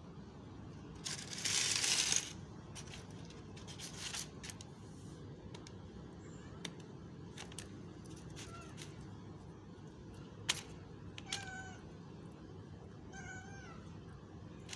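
White-and-grey street cat giving two short meows near the end, asking for food. Earlier a plastic bag being handled gives a loud rustle and scattered crinkling clicks.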